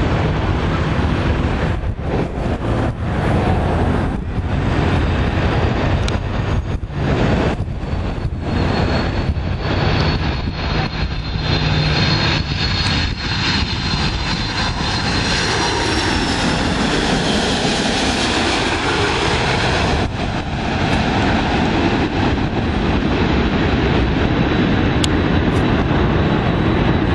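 Jet noise from a McDonnell Douglas MD-11's three GE CF6-80C2 turbofans on landing approach. A high fan whine builds as the airliner comes in low overhead, and then the engine noise sweeps down in pitch as it passes.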